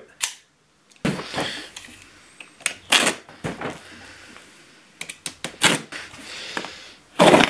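A box cutter slicing through packing tape on a cardboard box, heard as several short rasping cuts and scrapes, mixed with knocks of the cardboard being handled.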